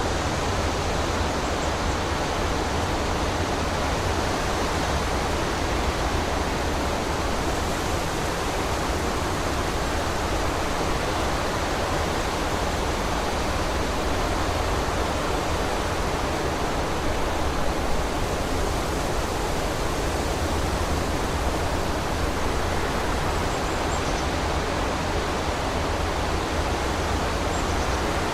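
Strong wind blowing steadily through forest trees, a continuous rushing with heavy low rumble.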